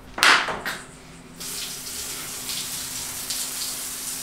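Tap water running into a bathroom washbasin: a short loud burst near the start, then a steady rush of water from about a second and a half in.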